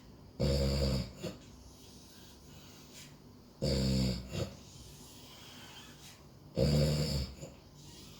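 Snoring in a sleeper's breathing rhythm: three loud, rough snores about three seconds apart, each followed by a short, softer sound.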